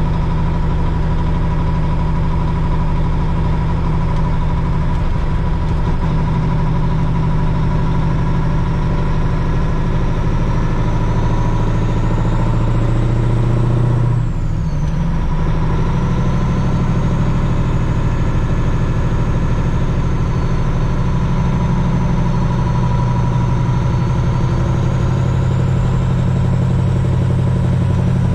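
Truck engine idling steadily, with a thin high whine drifting in pitch above it. About halfway through the sound dips briefly and the engine's pitch shifts.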